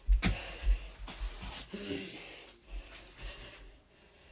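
Soft thumps and knocks of small balls being tossed, caught and dropped during juggling, with movement and footsteps; the two strongest thumps come in the first second, and there is a brief vocal sound about two seconds in.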